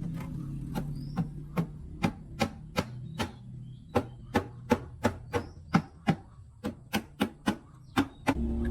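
A hammer tapping repeatedly: about twenty sharp strikes at two to three a second, with a couple of brief pauses, over a low hum that fades out partway through.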